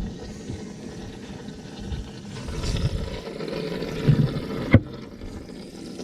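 Water lapping and sloshing against a boat hull, with a couple of knocks on the boat; one sharp knock near the end is the loudest sound.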